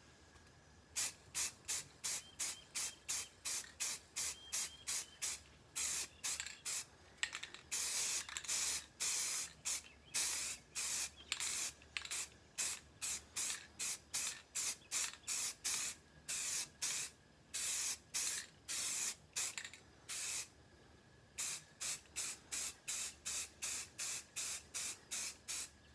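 Aerosol can of Rust-Oleum 2X flat grey spray paint spraying in many short bursts, about two a second, with a few longer blasts and a brief pause near the end, as a first coat is touched up on a foam model jet.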